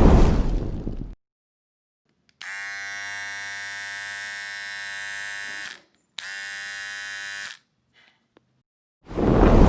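A buzzer sound effect: a steady, harsh, single-pitched buzz lasting about three seconds, then a second, shorter buzz at the same pitch. A loud noisy burst fades out in the first second, and another begins near the end.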